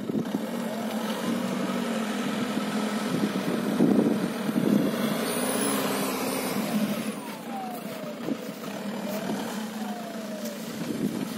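Volkswagen Passat B6 2.0 TDI diesel engine, chip-tuned to 170 hp, running as the four-wheel-drive saloon is driven along a muddy track. Its revs rise and fall, with a whine that climbs and later falls in pitch, loudest about four to five seconds in.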